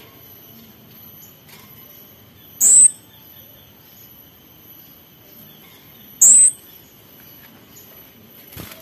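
Male kemade songbird giving two loud, sharp, very high calls about three and a half seconds apart, each brief, with a few faint chirps between.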